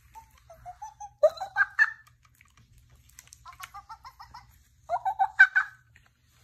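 Four short bursts of high-pitched, laugh-like giggling, each a quick run of voice sounds.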